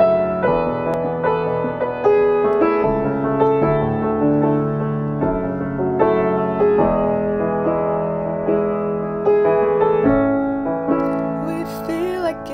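Piano played slowly, with held chords and notes changing about every half second to a second.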